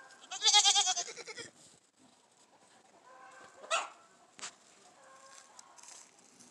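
Goat bleating: one loud, wavering call about a second long near the start, followed by a few much fainter calls.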